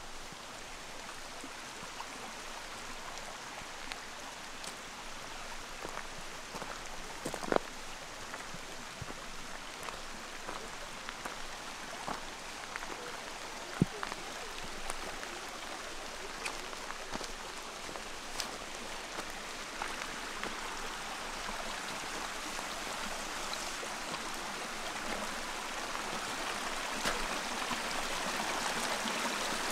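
Small mountain stream running over gravel and stones, growing louder toward the end, with footsteps on a gravel path and a couple of sharper knocks partway through.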